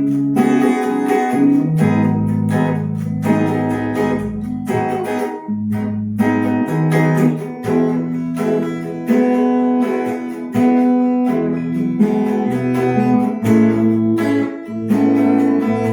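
Acoustic guitar music, strummed and plucked chords at a steady level.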